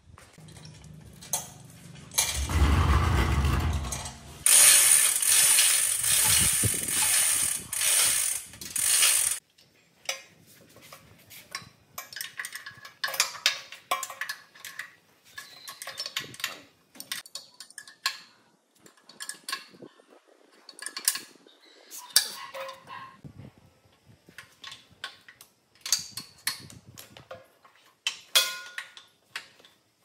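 A loud tool noise starts about two seconds in and runs for about seven seconds before cutting off sharply. It is followed by irregular small clicks and taps of small mechanical parts being handled and fitted.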